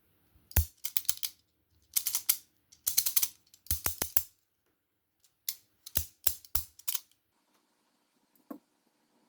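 A 3D-printed modular rotary switch being turned by hand, giving sharp clicks in quick clusters of two to five, with a few fainter single clicks near the end.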